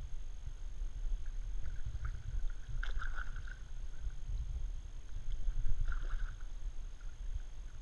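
Kayak paddle strokes in calm water: the blades dip and drip with small splashes, two louder ones about three seconds apart, over a steady low rumble.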